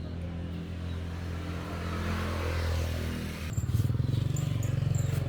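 A small engine running steadily. About three and a half seconds in its note changes to a louder, rapid throb.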